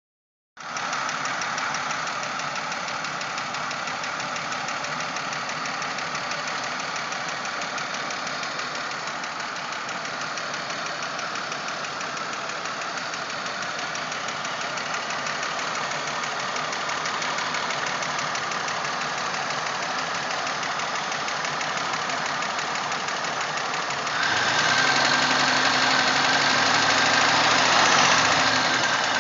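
1997 Pontiac Grand Prix GTP's supercharged 3.8-litre V6 running with a steady, rhythmic knock, a weird knocking noise whose cause is not known. About 24 seconds in it gets louder, as if revved, then eases back near the end.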